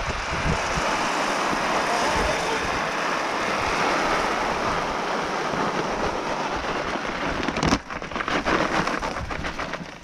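Layers pellets pouring from a paper feed sack into a feeder, a steady dense rattle of pellets. About eight seconds in the pour stops with a sharp click, followed by scattered clicks and rustling of the sack.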